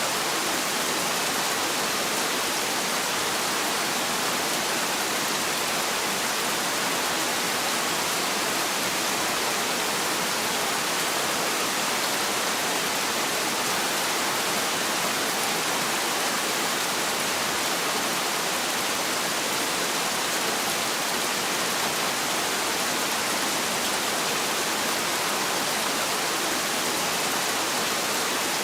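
Heavy rain falling in a steady, even hiss, with no thunder or other breaks.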